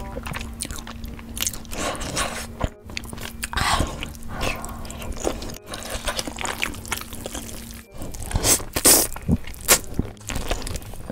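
Close-miked eating of spicy cold noodles: wet chewing and mouth clicks, with loud slurps of noodles about nine seconds in. Faint background music plays underneath.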